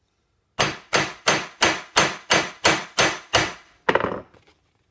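Flat face of a ball peen hammer striking a copper rivet through a steel strip and leather bracer, with the rivet head backed on an anvil horn: about ten sharp metallic blows at roughly three a second, then one last blow after a short pause. This is the flat-face stage of peening the rivet, before it is tightened with the ball end.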